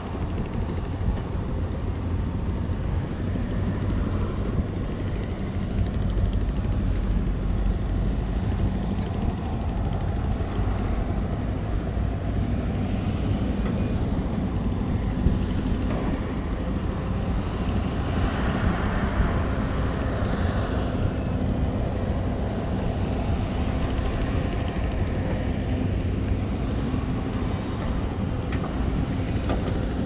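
Matador ME315 crawler excavator's diesel engine running steadily while it works its boom and bucket, with a rush of soil pouring into the dump truck's bed for a few seconds past the middle.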